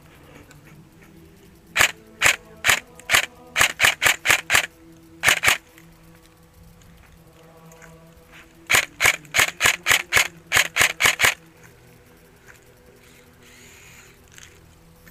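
Airsoft rifle, an EMG SBR AR-15, firing two strings of rapid single shots, about a dozen each, a few seconds apart.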